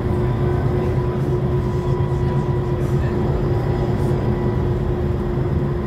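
Iveco Cursor 9 straight-six diesel of an Iveco Urbanway 18 articulated bus, heard from on board, running steadily under way at an even pitch, with a steady whine above the engine drone.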